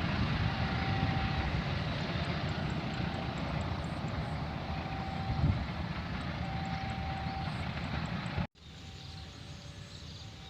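A train running past with a steady rumble, a faint short tone repeating every second or two over it. About eight seconds in it cuts off suddenly and a much quieter scene follows.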